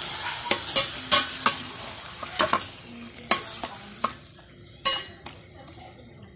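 Squid sizzling as it sautés in a stainless steel pot while a metal spoon stirs it, clinking sharply against the pot about nine times. The sizzle dies down after about four seconds.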